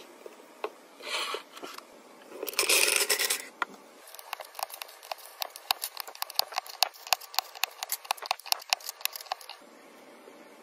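Plastic MathLink cubes being handled. First comes a short rattling, rustling bout of plastic. Then from about four seconds in the cubes click and snap together many times in quick, irregular succession, stopping near the end.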